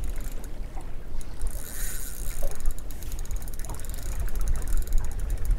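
Wind and water rumbling around a small drifting boat while a fish is played on rod and reel. About a second and a half in, a fast, fine ticking from the fishing reel starts and fades near the end.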